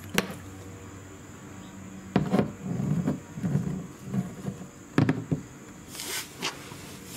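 Handling noises: a few sharp clicks and knocks with rubbing and rustling in between, over a faint steady high-pitched whine.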